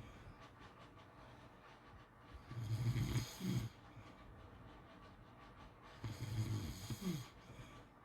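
A pit bull snoring in its sleep: two snores about three and a half seconds apart, each lasting about a second.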